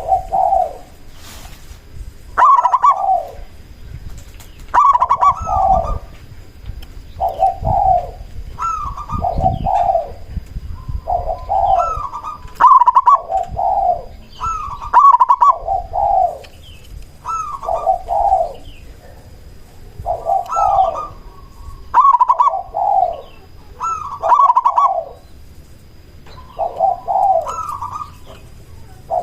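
Zebra dove (perkutut) cooing in full song: short rolling phrases of a few quick notes, repeated every second or two with brief pauses between them.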